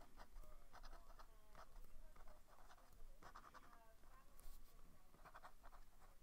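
Fountain pen nib scratching over paper in a quick run of short handwriting strokes, faint.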